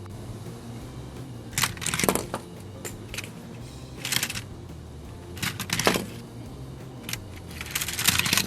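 Plastic toy car transporter being handled: several short bursts of clicking and rattling as its back loading ramp is lowered and the small racers on it are moved, over a steady low hum.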